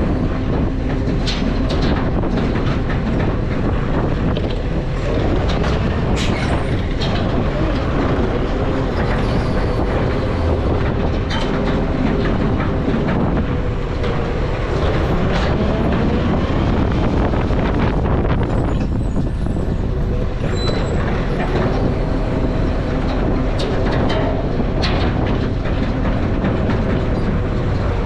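Heavy truck running with a steady rumble and a faint engine hum, with occasional clanks and rattles.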